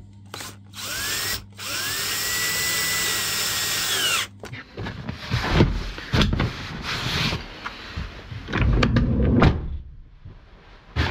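Ryobi cordless drill driving a seat-mounting bolt: a short spin, then a run of about three seconds whose motor whine rises, holds steady and falls as it stops. After that come irregular knocks and rubbing as the leather rear bench seat is handled.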